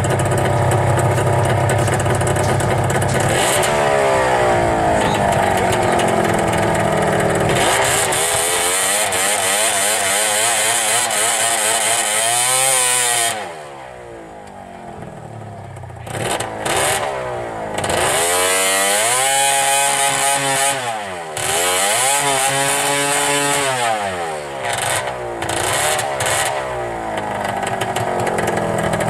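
The crashed 600 snowmobile's two-stroke engine is running. It idles at first, then is revved up and down in repeated swells, drops away for a couple of seconds midway, and is revved again.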